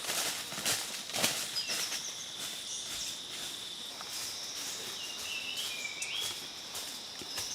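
Forest ambience: a steady high insect drone with short wavering bird calls, twice, and a few rustling clicks in the first second or so.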